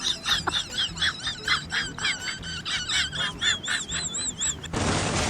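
A quick run of short, high-pitched chirping calls, about three a second, stopping a little before the end and giving way to a steady hiss.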